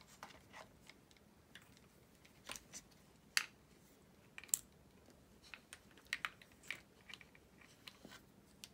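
Small plastic clicks and knocks as an RC crawler's transmission and motor assembly is pushed into the chassis and shifted to line up, sharpest twice about three and a half and four and a half seconds in.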